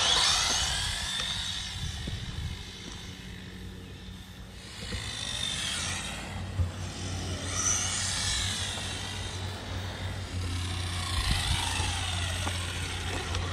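Brushed electric motor and drivetrain of a Redcat Lightning EPX Drift 1/10-scale RC car on a 2S LiPo, run flat out in a speed test. It starts with a sudden burst at launch, then whines, the pitch gliding up and down several times as the car speeds away and comes back.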